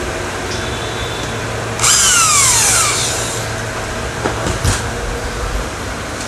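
Electric drill driving a metal screw through a hinge into an aluminium window frame in one burst of about a second and a half, its whine falling as the motor spins down. A steady low hum runs underneath.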